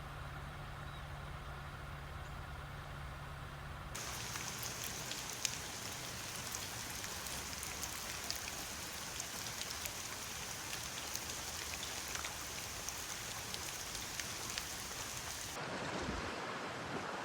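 A steady low vehicle engine hum, then, after an abrupt cut about four seconds in, heavy rain falling, with many sharp drop ticks. Near the end another cut brings a lower rushing noise.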